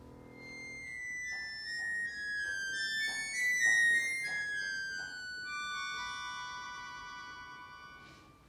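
Solo accordion playing high held notes and clusters that swell to a peak about midway, then step gradually downward and fade near the end, as lower notes die away in the first second.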